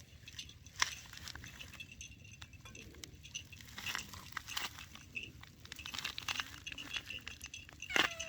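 A cat chewing and crunching food, heard as a run of small irregular clicks and crunches. A short meow begins right at the end.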